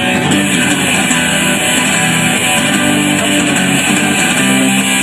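Guitar music with no singing: an instrumental passage of strummed guitar chords in a repeating pattern.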